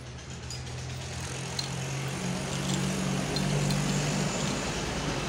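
An engine running off-scene, a steady low hum that swells in loudness midway and eases near the end. Faint small metal clinks come from coil springs being set into a motorcycle clutch.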